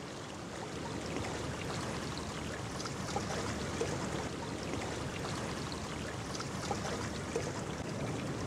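Ocean surf washing onto a beach: a steady rush of waves.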